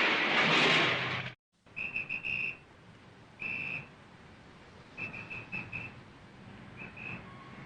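A car's tyres skidding, cut off abruptly about a second in. Then a whistle blown in short high-pitched blasts: three quick ones, one longer, a quick run of five, and two more near the end.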